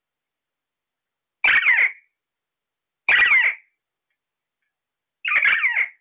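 Alexandrine parakeet giving three loud, harsh screeching calls, each about half a second long and spaced a second and a half to two seconds apart.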